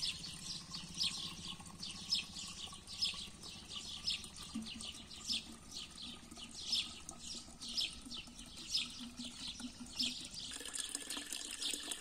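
White vinegar poured from a plastic bottle into a plastic pump sprayer's tank, the liquid running into the tank with a regular glugging about twice a second.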